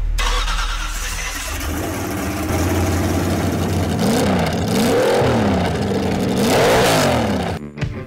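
A car engine revving, its pitch climbing and falling several times over a steady low running note. It cuts off suddenly near the end.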